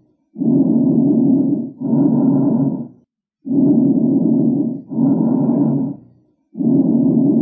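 Bronchial breath sounds heard through a stethoscope over the lungs: harsh, hollow breathing. There is about one breath cycle every three seconds, each an in-breath and an out-breath of about equal length with a brief pause between cycles. These breath sounds are often heard in pulmonary tuberculosis.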